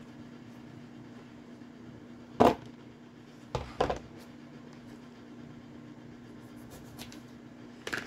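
Kitchen utensils knocking against a cutting board or bowl: one sharp knock about two seconds in, then two quick knocks a second later, and a couple of faint clicks near the end, over a steady low hum.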